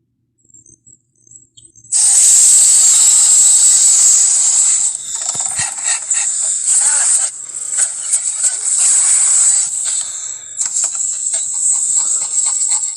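Loud hissing sound effect that starts abruptly about two seconds in after a few faint sounds. It has a bright, high edge with crackling ticks running through it, and it dips briefly a few times.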